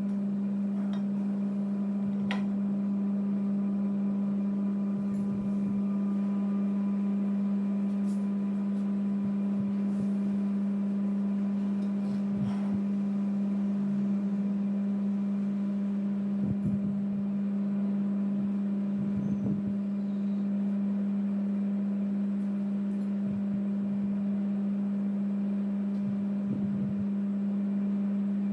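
A steady low mechanical hum, with a few faint clicks and taps as spring-roll wrappers and a metal spoon in a bowl are handled.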